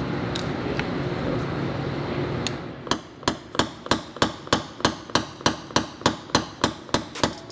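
Hammer tapping a steel-core Delrin knockdown against a car door panel to knock down high spots in paintless dent repair. The taps are quick and even, about three to four a second, and start about three seconds in after a steady background hum.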